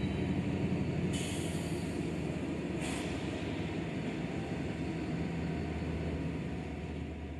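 Six-axle diesel freight locomotives running at low speed as a loaded train creeps to a stop, with two short hisses of air from the train's air brakes, about one and three seconds in.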